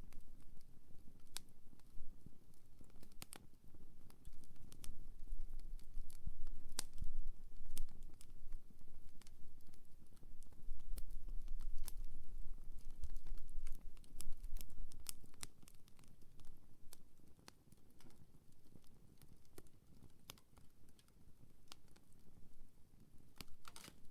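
Wood campfire burning, with irregular sharp crackles and pops over a low steady rumble of the flames.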